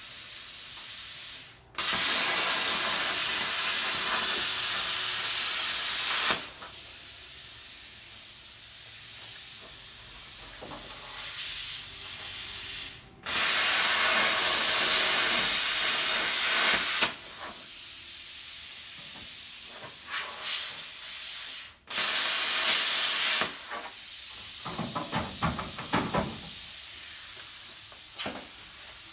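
Plasma cutter cutting through the steel of a car frame's X-crossmember: three long stretches of loud, steady hissing, with a quieter hiss between cuts. A few light metallic knocks come near the end.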